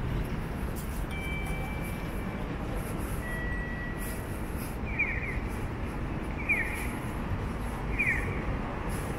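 Quiet city street ambience, a steady low rumble of distant traffic. From about halfway in, a short high chirp repeats about every second and a half.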